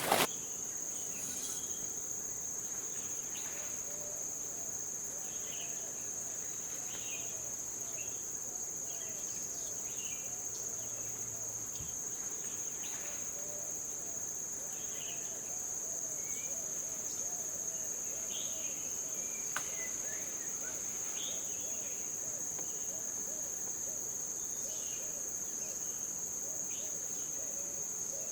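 Insect chorus shrilling in one steady, unbroken high-pitched drone, with scattered short chirps and a faint, fast-repeating low call beneath it.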